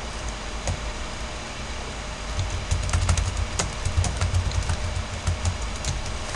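Computer keyboard typing: quick, irregular keystroke clicks that start about two and a half seconds in, over a low steady background rumble.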